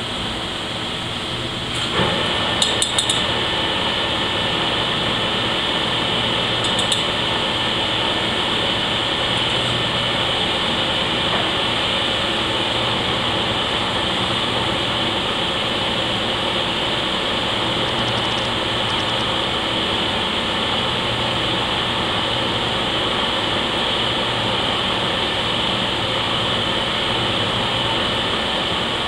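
Harrison lathe running steadily while a tap in the tailstock chuck is fed into a part in the spinning chuck; it gets louder about two seconds in, with a few sharp metallic clicks just after and another near seven seconds.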